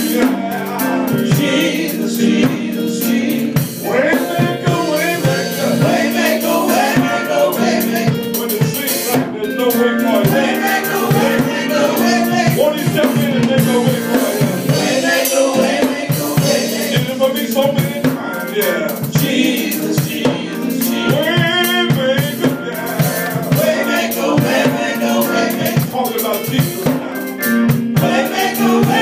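Live gospel praise singing: a lead singer on a microphone with other voices, over a drum kit and held instrumental chords.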